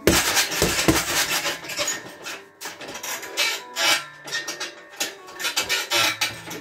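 Boxing gloves punching a hanging heavy bag: repeated thuds in quick clusters, the hardest near the start and about a second in, with scuffing and rubbing between punches.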